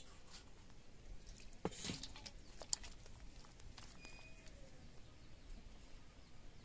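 A metal wok knocking and scraping against a metal plate as thick fish curry is poured out, in a few short clinks clustered around two seconds in.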